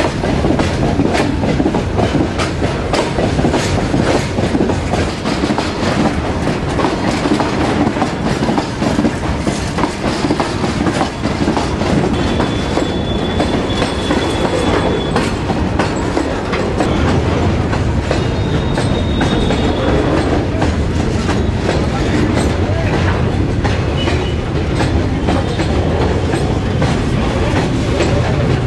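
Freight train wagons rolling past close by, their steel wheels clattering over the rails in a steady stream of clicks. A faint thin squeal of wheel on rail comes twice in the middle.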